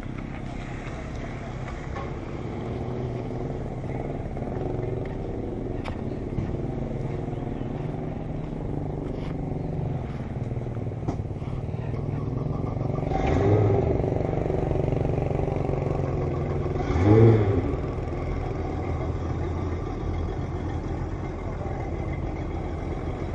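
Motorcycle engine running steadily with a low hum. Louder vehicle passes swell up about 13 seconds in and again, loudest, about 17 seconds in, the second with a rising and falling engine note.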